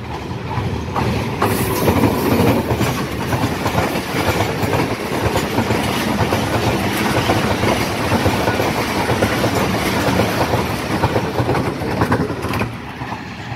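Diesel-hauled passenger express train passing close by at high speed. The locomotive comes through in the first couple of seconds, then the coaches follow with a fast clickety-clack of wheels over the rail joints. The sound eases off near the end as the last coach goes by.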